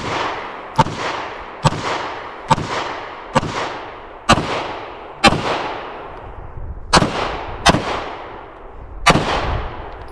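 Bear Creek Arsenal Grizzly 101 9mm pistol fired about ten times at a steady pace of roughly one shot a second, with a longer pause in the middle. Each shot trails off in a long echo.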